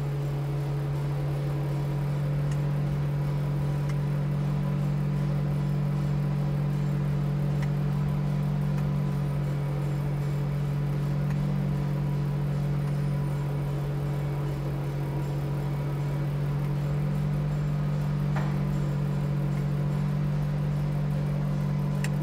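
Mensch V2520 manure vacuum running with its vacuum blower on: a loud, steady, unchanging drone, with a few faint clicks.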